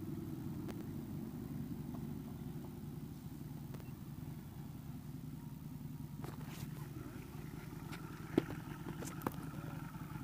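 A motor scooter's engine idling steadily, with a few faint clicks over it.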